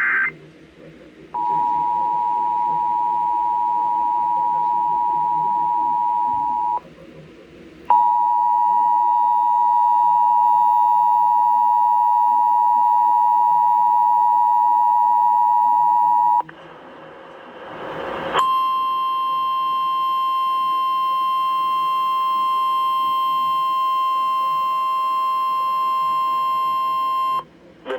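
Emergency Alert System two-tone attention signal heard over a radio broadcast: a steady, shrill chord of two tones, which breaks off once briefly and then resumes for about eight seconds. After a short rising noise, a single steady weather-radio alert tone of about 1 kHz sounds for roughly nine seconds and cuts off suddenly.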